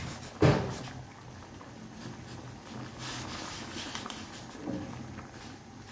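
Small pot of curry bubbling at a boil on a gas burner, with one short, loud knock about half a second in.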